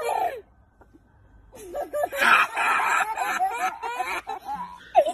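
A young boy laughing hard in high-pitched, rapidly repeated bursts. The laughter breaks off for about a second just after the start, then resumes loudly.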